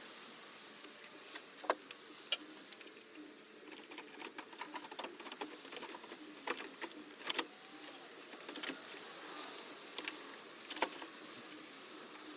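Irregular sharp clicks and light rattles of small parts and hand tools being handled, coming in quick clusters with a few louder knocks, over a faint steady background hum.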